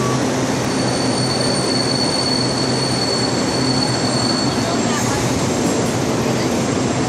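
A train running through an underground railway station: a loud, steady rumble of rolling noise, with a thin, high wheel squeal that sets in about half a second in and stops about two-thirds of the way through.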